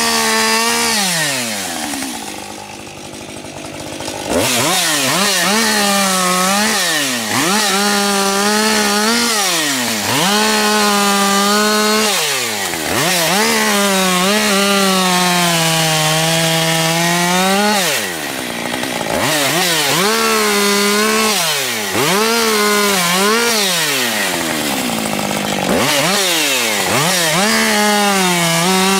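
Husqvarna 550 XP two-stroke chainsaw at high revs, cutting through firewood logs one after another. The engine pitch sags as the chain bites into each cut and climbs back as it clears. Near the start the throttle eases off for about two seconds before the saw revs up again.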